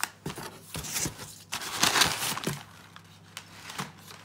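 A large cardboard shipping box being opened by hand: its flaps scrape and rustle in a run of short bursts, loudest about two seconds in.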